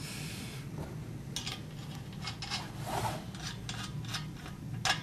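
Metal satellite-dish mount parts being handled: light scraping and rubbing with a few soft clicks as a carriage bolt is fed up through a square hole in the mast foot.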